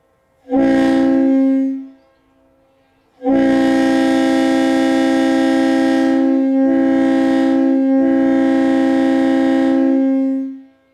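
Leslie RS-2A two-chime train horn sounded in a short blast and then a long blast of about seven seconds, two steady notes together, the upper note breaking briefly twice partway through the long blast. A faint echo of the chord lingers after each blast.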